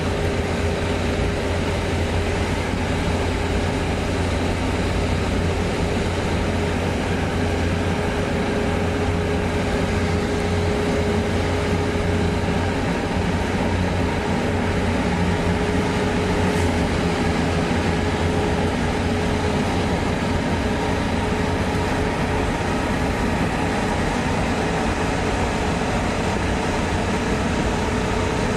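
A car driving at a steady speed through a road tunnel: an even rumble of engine and tyre noise with a steady low hum and a faint constant tone throughout.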